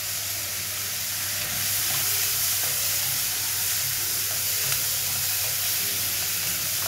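Sliced onions, curry leaves, dried red chillies and garlic sizzling steadily in hot oil in a stainless steel kadai. A wooden spatula stirs them near the end.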